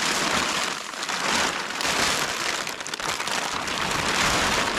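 Stiff frozen plastic tarp crinkling and crackling steadily as it is handled.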